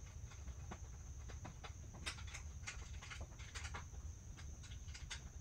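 Scattered light clicks and taps of chair parts and assembly hardware being handled, irregular and in small clusters, over a steady low hum and a faint steady high whine.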